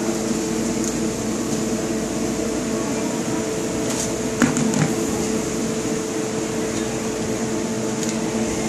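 Steady hum of a kitchen appliance's fan or motor, holding a few constant tones, with a couple of brief clicks about halfway through.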